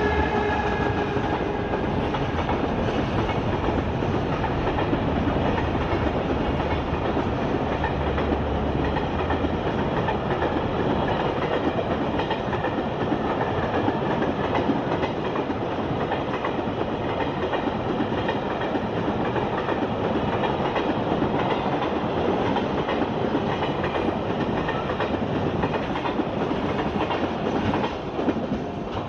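JR Freight EF210 electric locomotive (EF210-166) and its container wagons passing through, rumbling and clattering over the rail joints. A whine of several tones fades away in the first two seconds, and the noise eases near the end.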